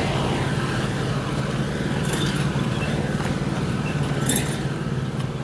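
A motor vehicle engine running steadily, with two brief sharp clinks, about two and four seconds in.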